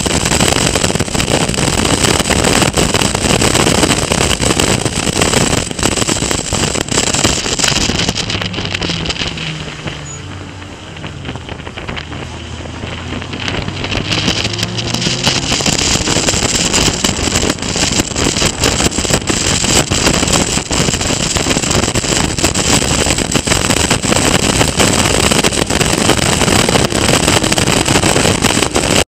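Onboard sound of a Caterham Academy race car at speed, with wind buffeting the microphone over the engine. Near the middle the wind drops as the car slows for a corner, and the engine comes through more clearly, its note falling and then rising as it accelerates out. The sound cuts off abruptly at the end.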